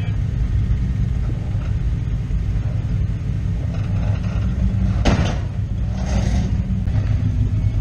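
Engine of a lifted vintage sedan rock crawler running low and steady as it climbs a rock ledge, with a brief louder burst of noise about five seconds in.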